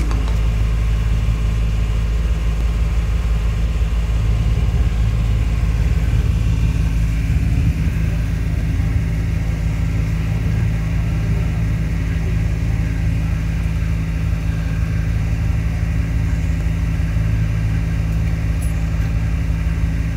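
Small passenger boat's engine running steadily, heard on board: a loud, even, low drone.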